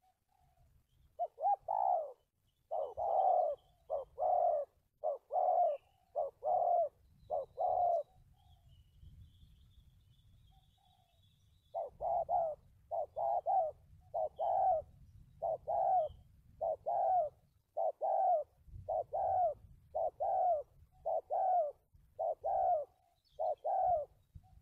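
Spotted dove cooing: a run of about eight short, low coos, a pause of about four seconds, then about fifteen more in quick succession. Faint high chirps of small birds and a low rumble sit underneath.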